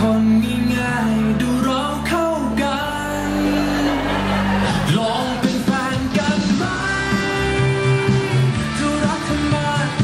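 Pop song with singing, played loud over loudspeakers for a dance routine. About five seconds in, the heavy held bass notes drop out and the song moves into a busier, choppier section.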